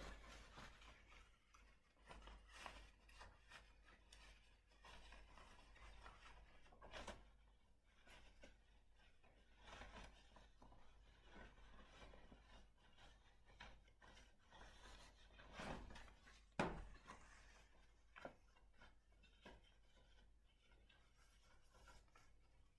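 Faint rustling of woven fabric being handled as a sewn tube is turned right side out. A few soft knocks come through, one sharper click about two-thirds of the way in.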